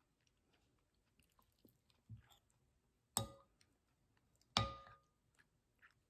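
Metal spoon clinking twice against a ceramic bowl, about a second and a half apart, each clink ringing briefly, with softer knocks and scrapes of the spoon in the food before them.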